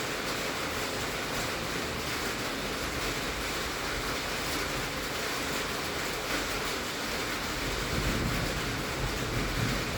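Heavy rain drumming on a tin (sheet-metal) roof as a dense, steady hiss, with a low rumble swelling near the end.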